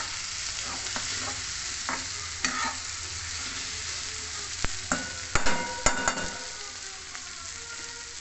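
Egg curry masala with boiled eggs sizzling steadily in a non-stick pan as a spatula stirs and scrapes through it. Scattered clicks of the spatula on the pan, with a cluster of louder knocks, some ringing briefly, about five to six seconds in.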